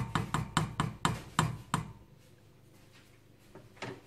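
Wooden spoon knocking against the side of a stainless steel soup pot while stirring: a quick run of about eight knocks in the first two seconds, then two softer ones near the end.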